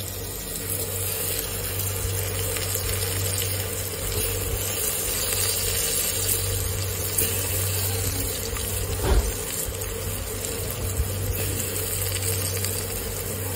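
Steel pot of shrimp broth simmering on a stove burner: a steady watery bubbling hiss over a constant low hum, with one short knock about nine seconds in.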